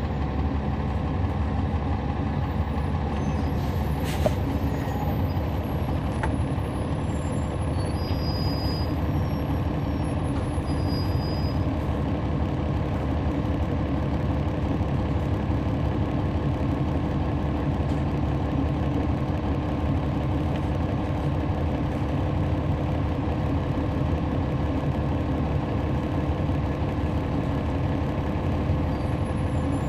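Cummins ISL9 inline-six diesel engine of a 2011 NABI 416.15 transit bus, heard from inside the bus, running at a steady, unchanging pitch. A brief click sounds about four seconds in.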